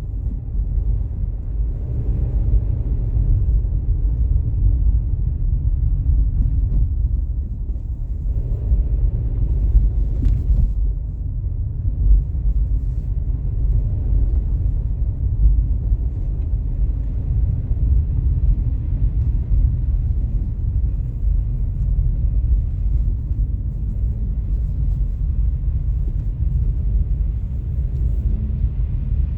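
Outdoor city street ambience in a heavy snowstorm: a steady low rumble.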